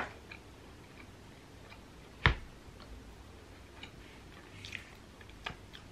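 A person chewing a soft garlic-butter bread scroll, with scattered small clicks and one sharper tap a little over two seconds in.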